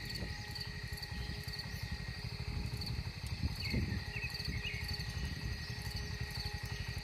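Insects chirping in an even rhythm, about two chirps a second, over a constant low rumble, with a few short higher chirps in the middle.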